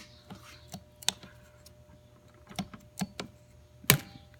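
Scattered clicks and knocks of a screwdriver and rubber belt against a metal pulley as the pulley is spun by hand to work the belt on, with one sharp knock near the end standing out.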